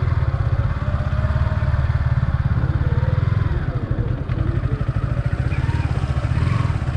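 Yamaha sport motorcycle's engine running steadily at low revs as it is ridden slowly over a rough, muddy dirt track.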